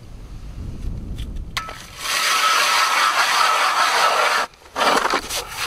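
Hand-cranked ice auger cutting into lake ice: a steady grinding scrape that starts about two seconds in, breaks off briefly near the end and starts again.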